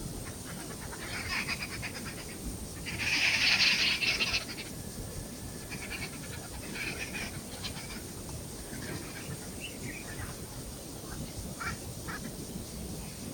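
A few short animal calls. The loudest is a harsh, rasping call lasting about a second and a half, about three seconds in, followed by fainter chirp-like notes.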